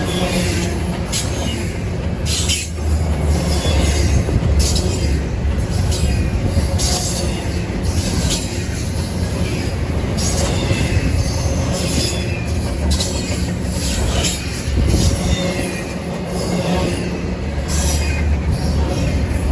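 A train rolling past with a steady low rumble. A clack comes every second or two as the wheels cross rail joints, and there is a faint squeal of wheels on rail.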